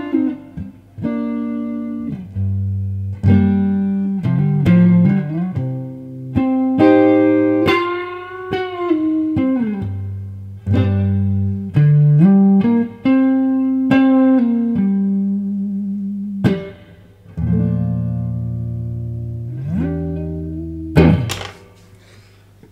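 Electric guitar, a Fender Stratocaster, playing slow, sustained lead notes with string bends over low held notes. Near the end a last sharp attack slides up in pitch, then the sound dies away.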